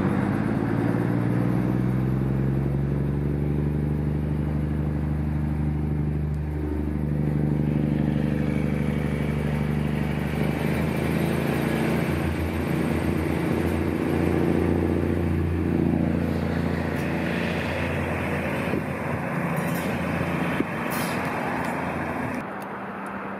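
Irish Rail diesel commuter railcars running at the station, a loud steady low engine drone whose note dips and recovers briefly twice. From about two-thirds of the way in, wheel and rail noise builds, with a few sharp knocks, as a train comes over the junction.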